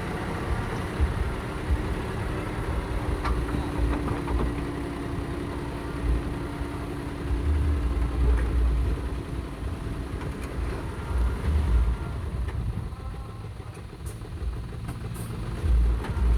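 Heavy vehicle engine running at a construction site, with a continuous low rumble that swells several times and a steady engine hum through the first part.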